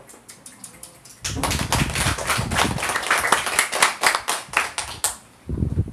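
A small group of people applauding: a few scattered claps at first, then about four seconds of brisk clapping that stops abruptly.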